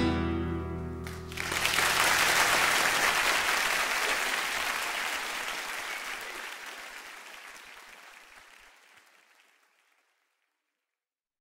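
The song's final chord rings out for about a second, then a live concert audience applauds. The applause fades away gradually over several seconds into silence.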